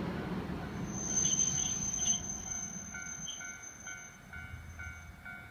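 Hankai Tramway Mo161-class tram Mo162 rumbling over a steel girder bridge, with a high, steady wheel squeal in the first few seconds. From about halfway, a railway level-crossing alarm rings about twice a second, fading toward the end.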